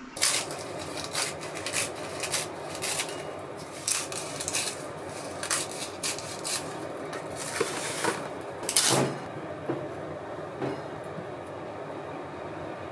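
Kitchen scissors snipping sheets of nori and a plastic rice paddle working rice on plastic wrap: a run of short, crisp clicks and knocks over a steady background hiss, with one louder knock a little before nine seconds in and fewer sounds after it.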